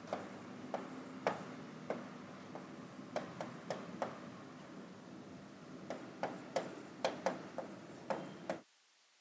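Writing on a board by hand: irregular sharp taps and strokes, bunched more closely near the end, over a steady room hum. All of it cuts off suddenly shortly before the end.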